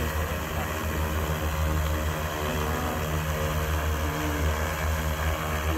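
X1400 industrial multirotor drone hovering, its motors and propellers giving a steady low hum made of several tones that waver slightly in pitch as the motors adjust.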